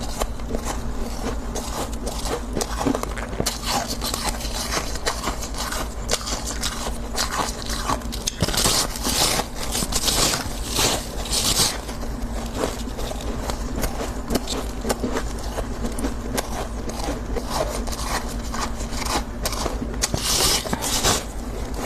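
Soft, refrozen freezer frost being crunched and scraped: a dense run of small crackles, with a few louder scraping passes in the middle and again near the end.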